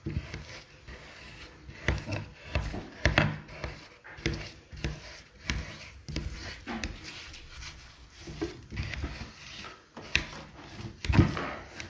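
Frozen lemon ice-cream mixture being broken up and crushed by hand in a wide dish: irregular scraping and knocking of a utensil against the icy block and the container. The loudest knock comes near the end.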